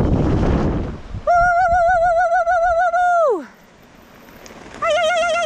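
Mountain-bike disc brakes howling under braking: a loud, wavering squeal that slides down in pitch as it stops, coming in twice. Wind noise on the microphone fades out in the first second.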